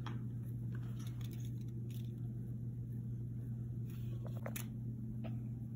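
Quiet, steady low hum with a few faint soft clicks and taps.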